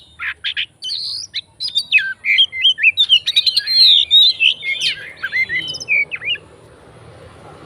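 Oriental magpie-robin (kacer) singing a fast, varied song of short whistled glides and chattering notes, full of borrowed phrases. The song stops about six seconds in and a faint rising rumble of traffic takes over.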